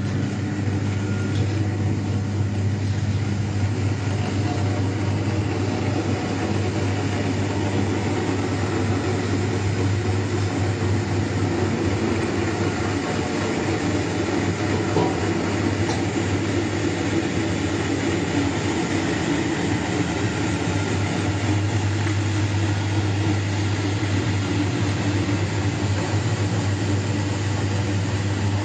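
Egg washing machine running steadily: a constant motor hum under an even mechanical rush from the washer.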